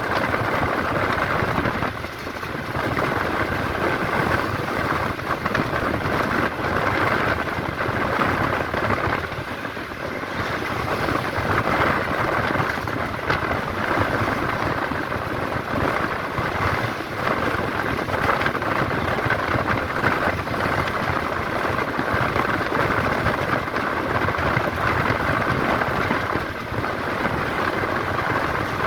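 Tamil Nadu government bus on the move, heard from inside: steady engine and road noise with a constant rattle, easing briefly a few times.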